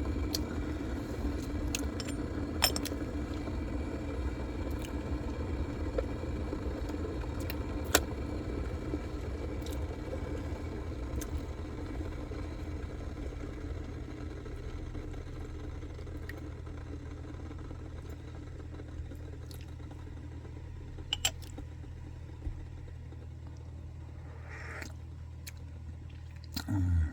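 A steady low background hum, with a few scattered sharp clicks and clinks and a short thump near the end.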